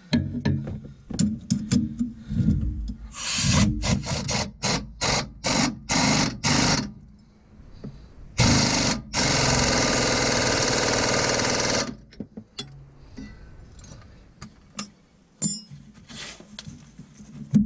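Ratchet and socket working a nut on a truck's drag link: scattered metal knocks and a run of rapid ratcheting strokes, about three a second. Past the middle comes a steady hiss lasting about three seconds.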